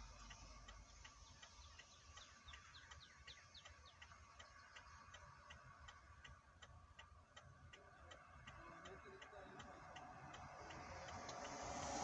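Faint, steady ticking, about three ticks a second, in near silence; near the end a broad rushing sound builds up, like traffic approaching.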